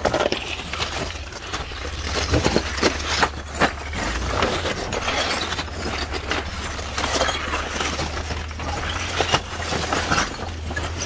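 Toyota Land Cruiser FJ80's inline-six engine giving a low, steady hum as the truck crawls slowly over loose rock, with frequent crunches and clinks of stones shifting and knocking together under the tyres.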